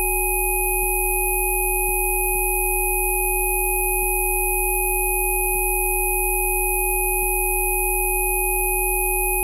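Synthesized pure tones of a frequency-therapy track: a low hum and several higher pitches held together, perfectly steady and unchanging.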